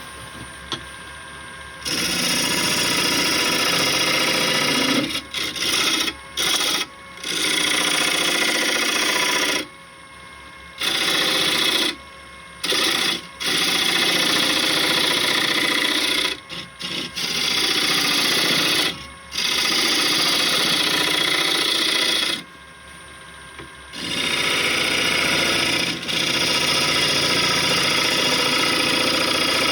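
A tool worked against wood spinning on a lathe, a loud rasping noise that starts about two seconds in, then breaks off and resumes many times with short pauses between passes.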